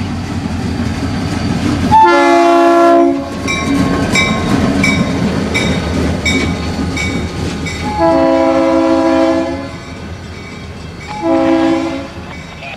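EMD GP40-2 diesel locomotive passing at speed with its turbocharged engine rumbling, sounding its multi-chime air horn in three blasts: long, long, then short, the pattern of the grade-crossing signal. Between the first two blasts a bell dings about twice a second.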